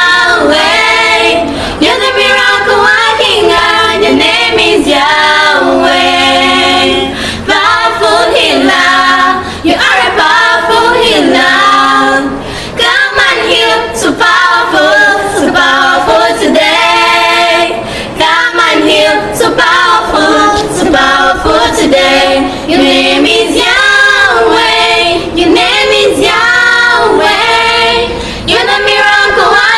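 A small group of girls singing a gospel chorus together a cappella, with no instruments.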